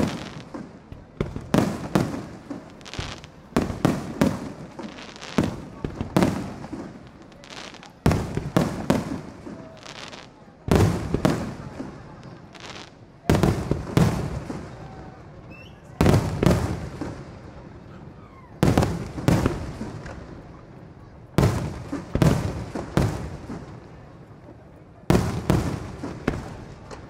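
Aerial firework shells bursting, a loud bang about every two to three seconds with quicker volleys of bangs in the first several seconds, each bang trailing off as it fades.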